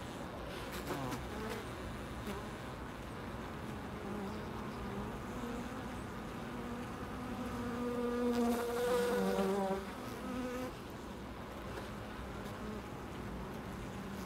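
Honey bees buzzing inside the hive, a steady hum. It swells louder and higher about eight seconds in, then drops back near ten seconds.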